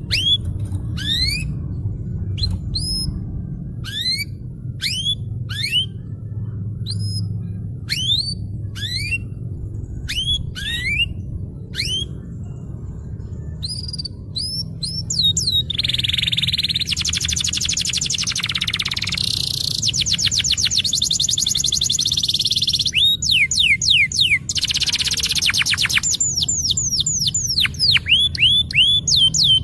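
Domestic canary singing: for about the first half, separate sweeping whistled notes roughly one a second, then fast rolling trills for the rest. A steady low hum runs underneath.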